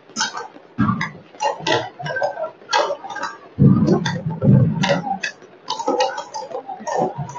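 Fireworks and firecrackers going off across the city: many separate sharp bangs and cracks at varying distances, with heavier, deeper bangs from about three and a half seconds in.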